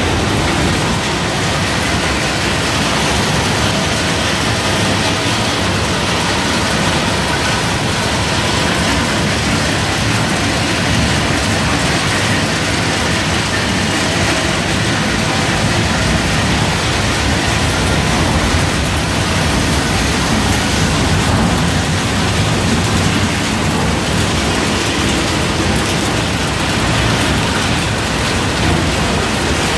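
Almond cracking and sorting line running: almonds pouring and shaking over vibrating steel sieve trays, with the machines' motors, making a steady, even noise.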